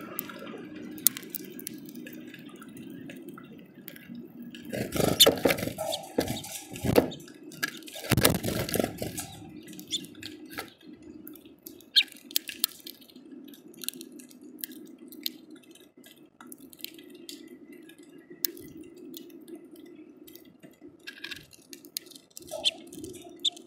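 Rain dripping and tapping on a plastic window bird feeder: scattered sharp drip clicks over a steady low hum, with a louder, denser stretch of noise from about five to nine seconds in.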